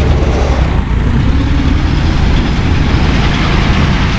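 An engine running steadily, close by and loud, with a low, even hum.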